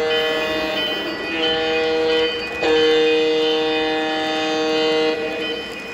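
Lionel O gauge model diesel locomotive's onboard sound system blowing a multi-note air horn: a blast that ends about a second in, a short blast, then a long blast of about two and a half seconds, over the rumble of the model running on three-rail track.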